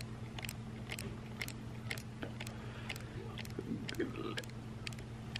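Quiet room with a steady low hum and faint, sharp ticks about twice a second.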